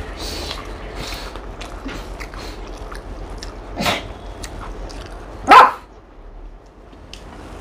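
A dog barking twice: a short bark about four seconds in and a much louder one about a second and a half later. Between and before them, faint chewing and lip-smacking sounds of someone eating.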